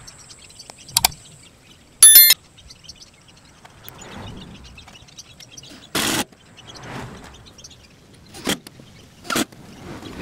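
Power drill run in short bursts while pre-drilling and screwing together a wooden rack. The loudest is a brief high whine about two seconds in, with another short burst around six seconds and scattered clicks and knocks of handling.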